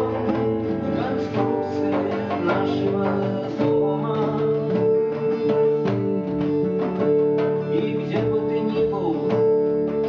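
Guitar strummed live with a steady rhythm, about two to three strums a second, over held chords, as part of a singer-songwriter's song.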